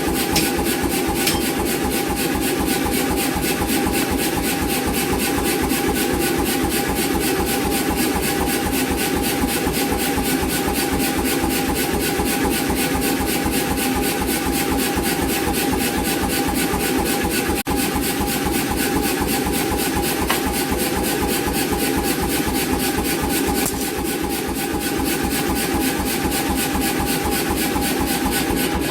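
88 lb C41 self-contained air power hammer running, striking in a fast, even, unbroken rhythm with a steady ringing tone over the blows.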